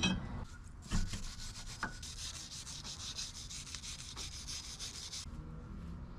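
Fast, steady scraping strokes, like something being scrubbed or sanded, that start about two seconds in and stop suddenly near the end, after a few sharp knocks.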